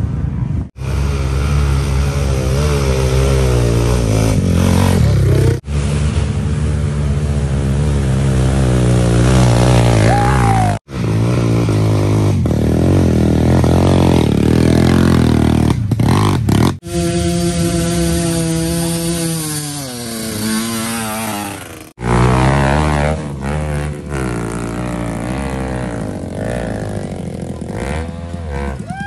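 Dirt bike engines revving hard under load, the pitch surging and dropping as the bikes labour up a steep hill climb. The sound breaks off abruptly every few seconds as one clip cuts to the next.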